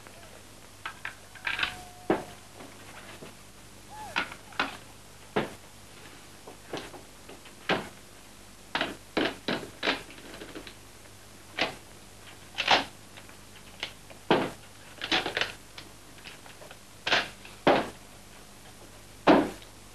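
Bren light machine gun being reassembled by hand after field stripping: a run of sharp, irregular metallic clicks, clacks and knocks as its parts are fitted and locked together, some much louder than others.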